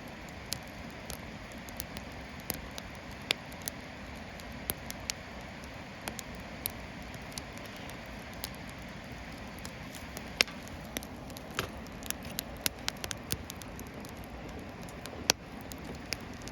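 Wood fire crackling in a fire pit made from an 18-litre square steel can, with sharp pops scattered through and a cluster of them past the middle. Under it runs the steady rush of a river.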